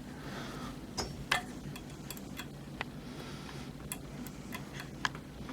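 Scattered light clicks and taps of small printer parts and screws being handled and fitted during assembly, irregular and quiet, over a low steady hum.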